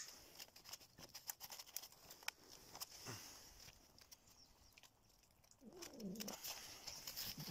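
Cats eating from a plastic food tray: faint, scattered chewing and lapping clicks. About six seconds in, a short low call that falls and then rises in pitch.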